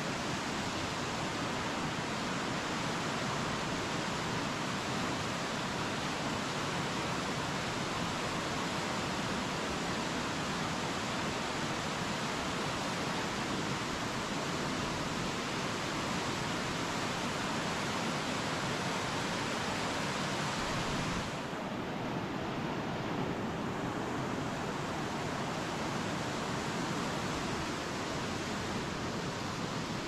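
Waterfall rushing in a steady, even roar of falling water. It turns slightly quieter and duller about two-thirds of the way through.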